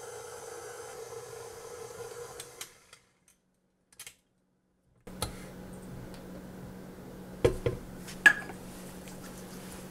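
KitchenAid stand mixer's motor running steadily as the dough hook kneads bread dough in the steel bowl, stopping about two and a half seconds in. After a silent gap, a lower steady hum with a few sharp clicks and knocks as the mixer head is tilted up and the dough hook lifted out of the bowl, the loudest a little past eight seconds in.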